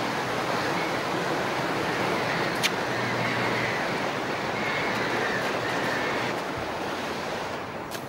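Sea waves washing against rocks, with wind: a steady rushing noise that eases slightly after about six seconds. A single sharp click about two and a half seconds in.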